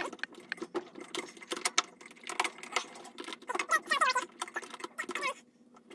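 Hands working a new rubber bellow gasket onto the tub rim of a Whirlpool Duet front-loading washer: a busy run of scratchy clicks and rubber rubbing, with short squeaks about four seconds in and again a second later.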